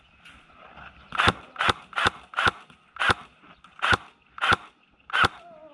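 ARES AM-09 electric airsoft gun firing single shots: eight sharp cracks, the first four about half a second apart, then more spread out, up to a second apart, while its battery is close to dying.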